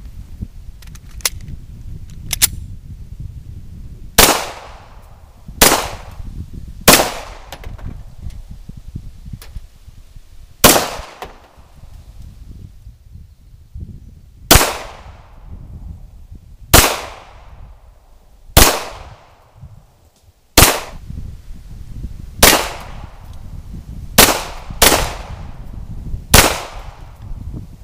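Glock 34 9 mm pistol fired in slow, single aimed shots, about a dozen sharp cracks one to four seconds apart, each followed by a brief echo. A few fainter shots come in the first few seconds.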